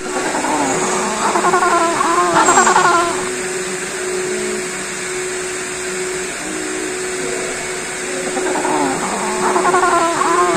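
Banded penguins braying: a bout of quick, repeated, rising-and-falling calls in the first three seconds and another starting near the end, over a steady hum.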